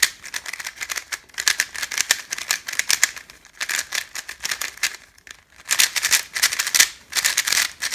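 GAN 356 Air SM magnetic speedcube being turned fast by hand: rapid bursts of plastic clicking and clacking from the layers, with brief pauses between runs of turns.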